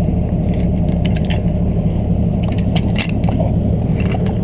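Heavy wrecker truck's engine idling steadily, with scattered short metallic clicks and clinks over it, several close together about a second in and again near the middle.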